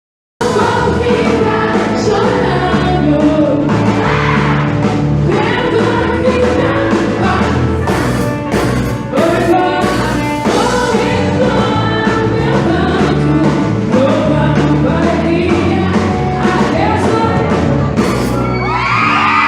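A song with singing over bass and drums, starting abruptly about half a second in.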